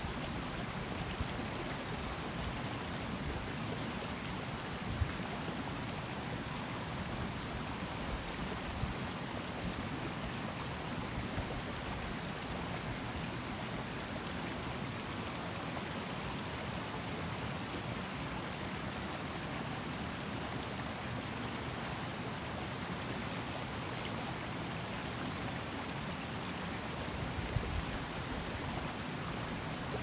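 Highland mountain river flowing steadily over rocks, a constant even rush of water. A few low bumps come near the end.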